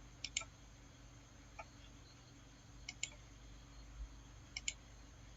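Computer mouse clicking, faint, mostly in quick pairs of clicks spread a second or more apart, as edges are selected one by one for a fillet in CAD software.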